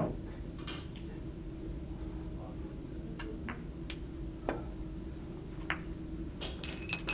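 Sharp clicks of billiard balls in play on a keglebillard table: a loud knock right at the start, a few scattered single clicks, and a quick run of clicks near the end.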